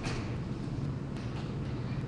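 Steady low hum over a constant background rumble and hiss, with a few faint ticks scattered through it.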